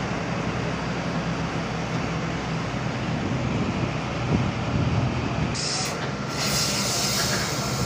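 Heavy truck engines running steadily as lorries move through floodwater over a road, with a low hum underneath. About five and a half seconds in, a steady high hiss comes in.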